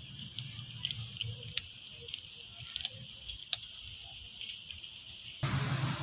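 Cat chewing dry kibble, with a few sharp crunches, over a steady drone of crickets or other insects. Near the end a louder, noisier stretch begins.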